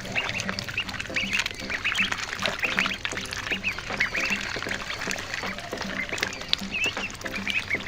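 Ducklings peeping in many short, high, overlapping chirps, several a second.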